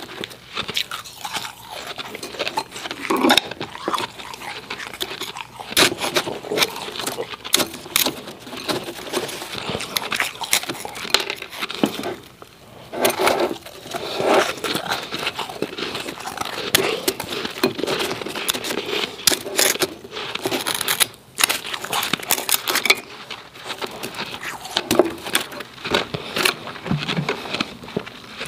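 Close-miked chewing of powdery, snow-like refrozen ice: dense, irregular crunching and crackling with a few short pauses. The ice is also crunched as it is scooped from the bowl by hand and with a wooden spoon.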